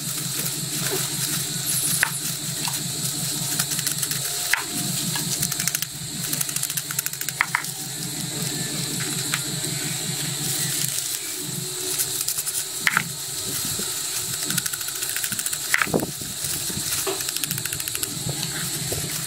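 Foil sachets of powdered digestive enzyme being slit open with a knife and emptied over a plastic basin: scattered sharp crinkles and taps over a steady rattling hiss.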